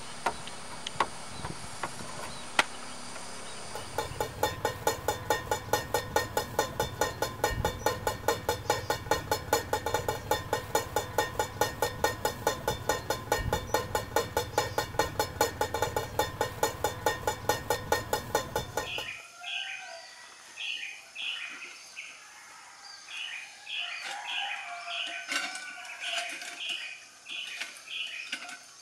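A steady hiss gives way to a loud, even mechanical pulsing, about four beats a second, which cuts off suddenly two-thirds of the way through. Birds then chirp in repeated short calls over a quiet outdoor background.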